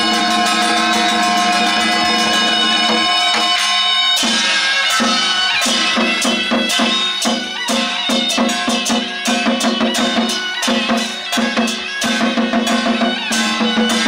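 Traditional temple procession music: a shrill wind melody in long held notes, joined about four seconds in by fast, steady drum and cymbal-like percussion strikes.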